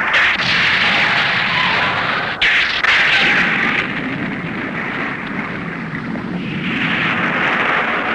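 Continuous explosion-like crashing and rumbling on a film soundtrack, with a sharper burst about two and a half seconds in.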